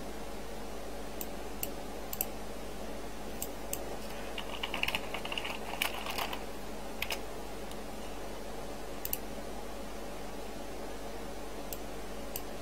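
Computer keyboard typing: a short run of keystrokes about five seconds in, with scattered single clicks before and after, over a steady low hum.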